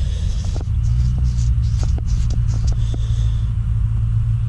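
A steady low rumble and hum, with scattered light clicks and taps over it.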